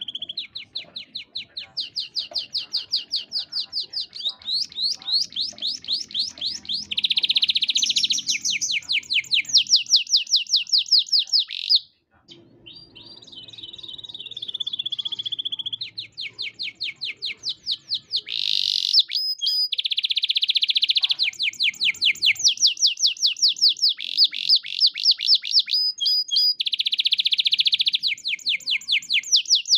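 Domestic canary singing a long, vigorous song of fast repeated notes and dense rolling trills, with one short pause about twelve seconds in.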